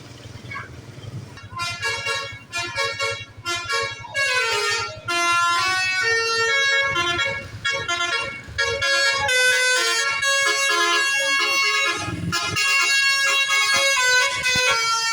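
Indonesian bus 'basuri' telolet horn, a multi-trumpet musical air horn, playing a tune. It starts about a second and a half in with short separate notes, then moves to longer held notes that step through a melody. A low engine rumble is heard before the horn starts.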